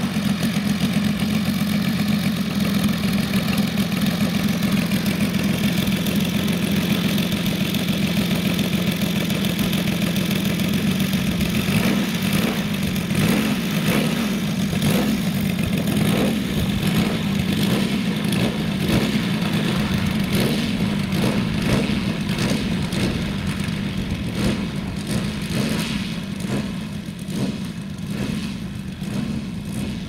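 Saito three-cylinder four-stroke radial engine on a 1/5 scale model aircraft, idling steadily with its propeller turning. Later it runs on as the model taxis away, growing fainter near the end.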